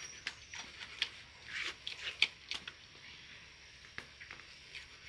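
A knife cutting the tail off a butchered pig: scattered short, soft cutting and tearing sounds with a few sharper clicks.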